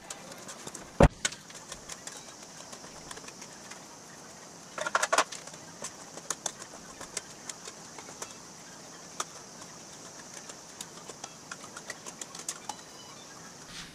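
A thin aluminium sheet being worked on an English wheel, shaping a grill-shell panel. Light clicks and ticks come from the sheet as it is rolled back and forth between the wheels. There is one sharp knock about a second in and a short clatter of the sheet around five seconds.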